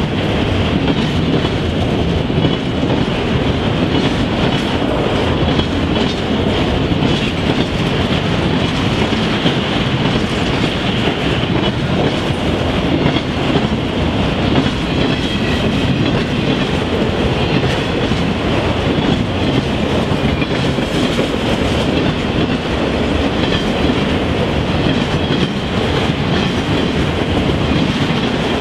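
Freight train of autorack cars passing at speed close by: a steady, loud rumble with a continuous clatter of steel wheels on the rails.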